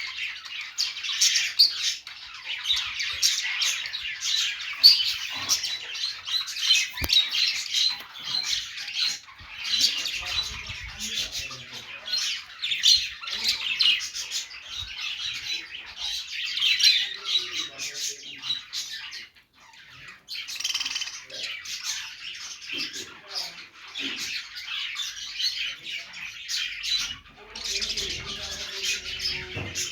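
Pet budgerigars chattering: dense, overlapping high chirps and warbles with squawks mixed in, pausing briefly about two-thirds of the way through.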